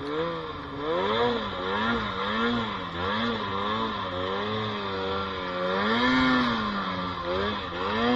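Snowmobile engine revving up and down in quick repeated swells, about twice a second, as the sled is worked through deep powder. About six seconds in it holds one longer, higher rev before the quick swells return.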